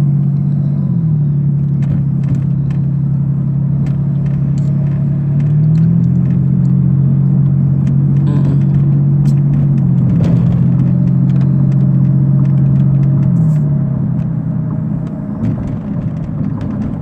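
A motor vehicle running: a loud, steady low hum that glides to a new pitch a few times, with light clicks and rattles over it.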